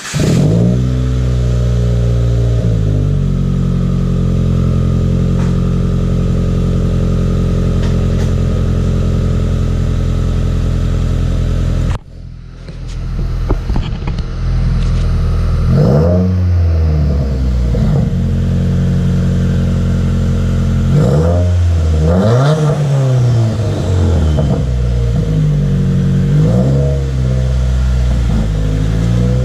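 Subaru WRX turbocharged flat-four with an aftermarket exhaust starting up, flaring and settling to a steady idle within a few seconds. About twelve seconds in, after a break, it idles again and is revved several times in quick blips, one larger rev among them.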